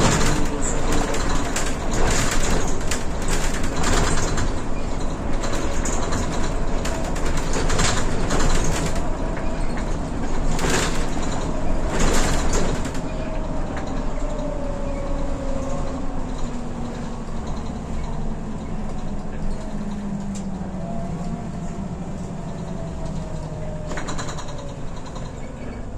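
Mercedes-Benz Citaro O530 city bus heard from inside the passenger cabin while under way: engine and road noise with frequent rattles and knocks over the first half. Then a whine falls steadily in pitch and the noise eases as the bus slows for a stop.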